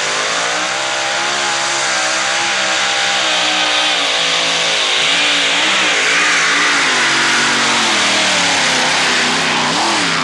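Two-wheel-drive pulling truck's engine at full throttle, dragging a weight-transfer sled down a dirt track. Its pitch rises and falls through the pull and sags near the end as the pull comes to a stop.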